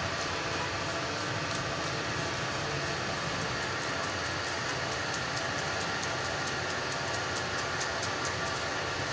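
Steady engine-like hum and hiss of street noise, even throughout, with faint light ticks now and then.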